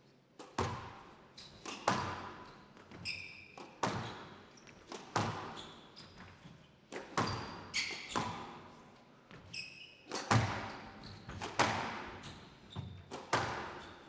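Squash rally: the ball cracking off rackets and the court walls every half second to a second, each hit echoing in a large hall, with the occasional squeak of players' shoes on the court floor.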